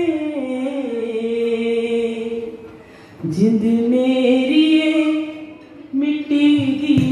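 A woman singing a slow devotional chant into a microphone in long held notes that glide gently between pitches. She sings two phrases, with a short dip for breath about three seconds in and another near six seconds.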